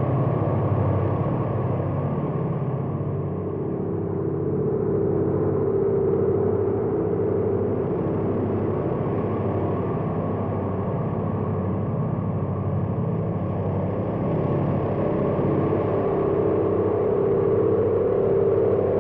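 Sound-effect UFO hovering: a steady low humming drone with a higher tone that swells in and fades twice.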